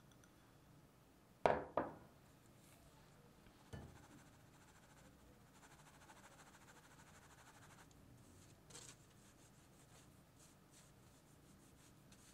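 A stainless mesh sieve being handled and shaken to sift flour and cocoa powder into a glass bowl. Two sharp knocks come about a second and a half in, then a softer knock, faint rustling, and near the end quick light taps.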